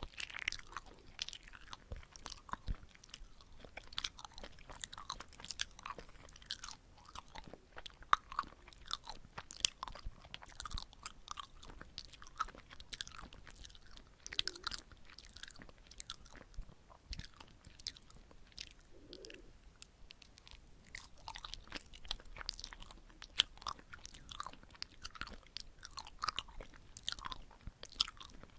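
Close-miked chewing of red-bean chapssal-tteok (sticky glutinous rice cakes): soft, wet, sticky mouth sounds and small smacks, in a steady irregular stream.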